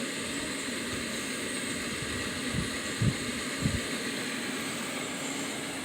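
Steady hum and hiss from an open honeybee hive, with three short low thumps in the middle.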